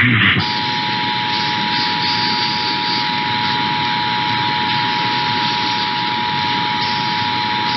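Emergency Alert System two-tone attention signal (853 and 960 Hz sounding together), held steady over a heavy hiss of received broadcast audio. It announces that an emergency alert message follows. Right at the start it breaks off briefly with a short burst, then resumes about half a second in.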